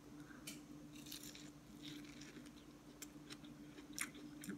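A person biting into and chewing an ear of grilled sweet corn: faint, irregular crunches of the kernels over a low, steady hum.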